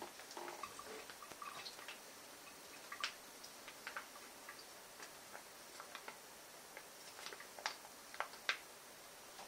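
Faint, scattered clicks and small taps as a bottle of dark sauce is handled and poured over raw chicken pieces in a bowl, with a few sharper ticks near the middle and end.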